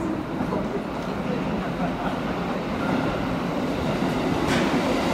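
Tokyo Metro Chiyoda Line train approaching through the subway tunnel into the station, a steady rumble of wheels on rail that grows slowly louder. A thin high whine comes in about three seconds in, and there is a single sharp click about a second later.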